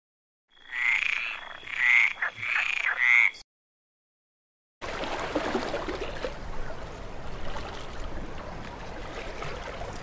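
A frog croaking four times in about three seconds, then a short silence, followed by steady water sloshing and splashing as a brown bear swims.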